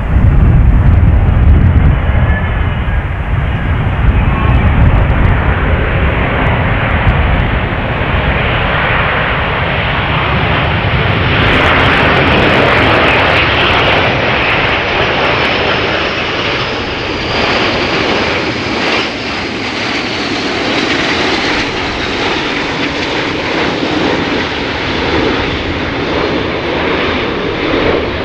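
Turbofan jet noise from a formation of CASA C-101 jet trainers flying low on approach with gear down. A low rumble at first gives way to a louder rushing jet noise with a high whine that builds from about the middle and eases off near the end.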